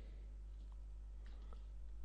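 A few faint computer mouse clicks, a couple of them about a second and a half in, over a steady low hum in the recording.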